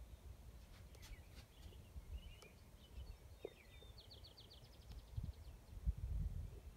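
Songbirds calling and singing outdoors, short chirps and warbles with a quick trill of rapidly repeated high notes about four seconds in. Low wind rumble on the microphone underneath, gusting stronger near the end.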